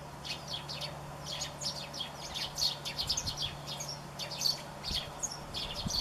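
A flock of Eurasian tree sparrows chirping, with many short chirps coming in quick succession and overlapping.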